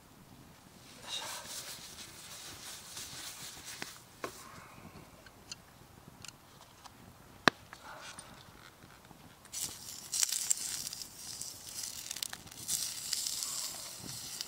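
Wood campfire crackling and hissing under a pan, with one sharp pop about halfway through. The fire flares up and grows louder and busier with crackles about ten seconds in.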